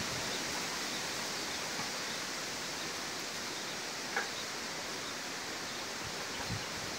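Strong wind rushing through trees and banana plants: a steady, even rustling hiss of tossing foliage.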